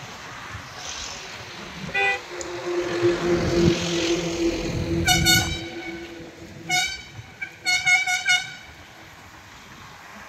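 Road vehicle horns honking as traffic passes. A short beep comes about two seconds in, then a lower steady tone holds for a few seconds, then several bursts of quick high-pitched toots come in the second half.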